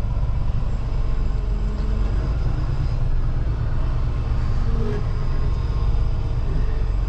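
Semi truck's diesel engine running steadily at low speed while making a slow, wide turn, heard from inside the cab as a continuous low rumble.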